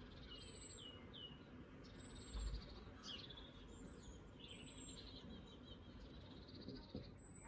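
Songbirds singing faintly in the background: repeated short chirps and warbled phrases. A dull thump about two and a half seconds in, and a short tap near the end.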